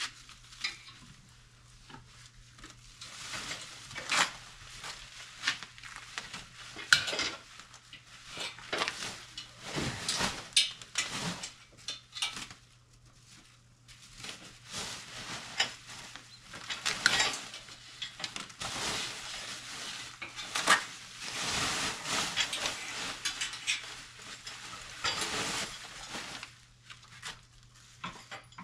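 Metal parts and hand tools clinking and clattering during mini bike assembly: irregular knocks and clinks, some close together, with short stretches of handling noise between them.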